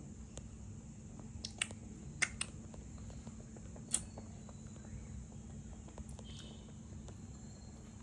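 Cockatiels making a few short, sharp clicks and taps at a mirror against a steady low room hum. The clicks come in a small cluster between about one and a half and four seconds in.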